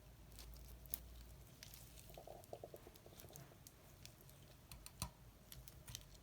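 Faint sticky clicks and crackles of slime being stirred and mixed, with a short squeaky sound about two seconds in.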